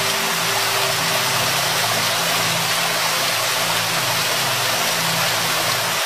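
Waterfall: a steady, even rush of falling water with a faint low hum underneath.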